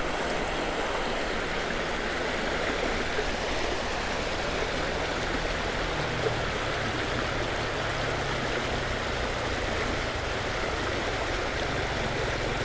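Creek water rushing steadily over a rocky riffle, a constant even wash of noise.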